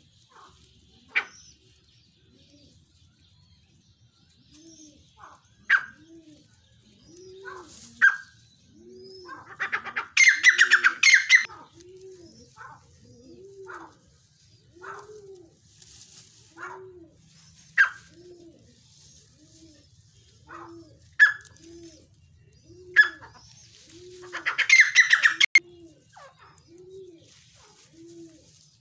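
Pigeons cooing in a steady run of low, arched coos, about one a second. Sharp chirps from other birds come in between, with two louder bursts of rapid chattering calls, about ten and twenty-four seconds in.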